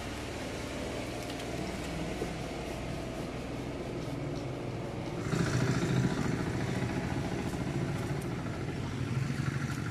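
A motorcycle engine idling steadily, getting louder from about halfway through.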